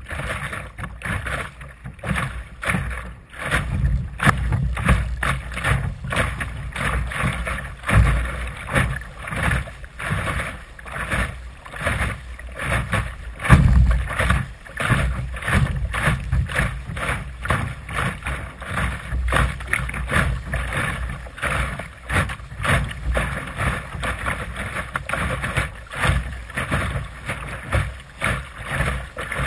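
Water splashing and slapping against the bow of a Sunfish sailing dinghy under way through chop, in uneven surges, with wind buffeting the microphone.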